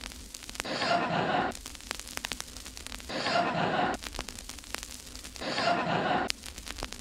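A man's breathy sigh, repeated three times about two and a half seconds apart like a loop, with faint clicks between.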